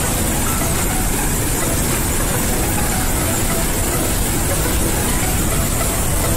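Water discharging at full force from a dam's outlet gates: a steady, loud rush of water, heaviest in its low rumble.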